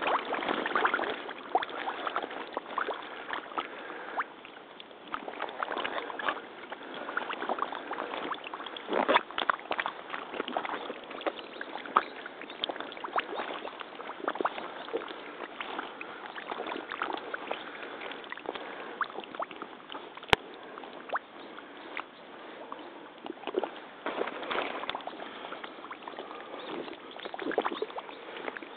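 Steps in crotch-high rubber waders wading through shallow water over soft mud: continuous, irregular sloshing with many short splashes.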